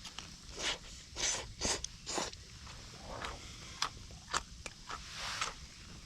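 A run of short scraping swishes, about four in the first two seconds and another near the end, with a few light clicks in between.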